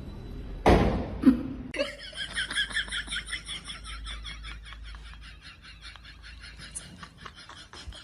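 A person laughing in a rapid, high-pitched giggle that slowly fades away. It follows a short loud noise at the start.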